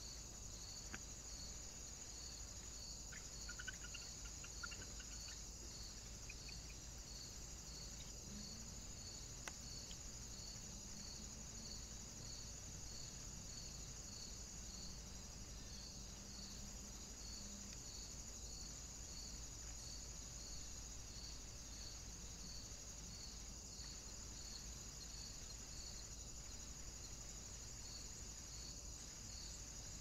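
Faint, steady chirring of crickets or bush crickets, with a regular chirp repeating about three times every two seconds.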